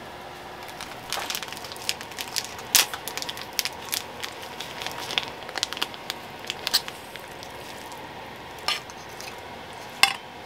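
Food-prep sounds: a quick run of small crackles and taps as a paper seasoning packet is handled and its powder shaken onto noodles in a steel bowl. Near the end there is a single clink as a frying pan and fork touch the bowl while a sausage patty is slid in, all over a steady faint hiss.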